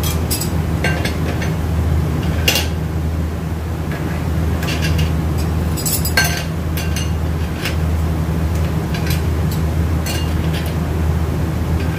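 Automatic-transmission clutch plates, steel and friction discs, clinking against each other and the drum as they are lifted out and handled: a scattering of light metallic clinks over a steady low hum.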